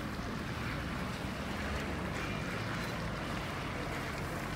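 Wind blowing steadily across the microphone, a continuous rumble with a hiss above it.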